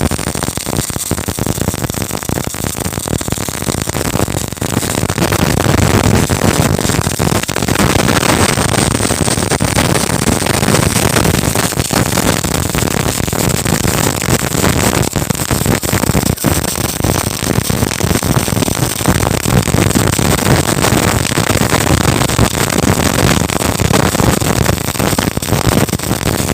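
MIG welding arc running a bead in the flat position: a steady, dense crackle that gets a little louder about six seconds in.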